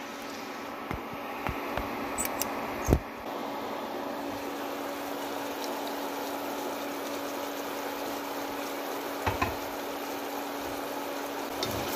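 Chicken wings simmering in a thick sweet-bean-paste sauce in a pan on low heat: a steady bubbling hiss with a few light clicks and pops in the first three seconds, over a low steady hum.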